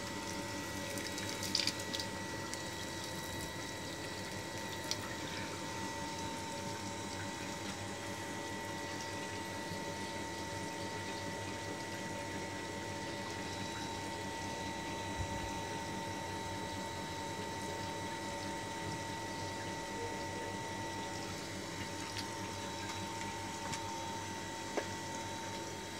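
Murky flush water gushing steadily from the bottom drain of a steel water-filter tank and splashing onto a tiled floor as the filter is drained, over a steady hum.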